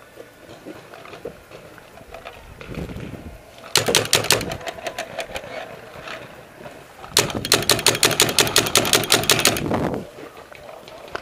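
Paintball marker firing two rapid bursts of shots, a short one about four seconds in and a longer one of about two and a half seconds from about seven seconds in, at roughly ten shots a second.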